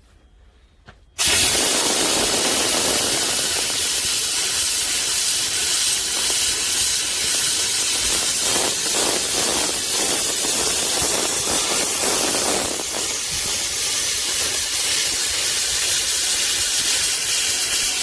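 An 11-litre steam thawer's nozzle jetting hot, high-pressure steam onto a cloth car seat. The steady loud hiss cuts in suddenly about a second in and keeps going.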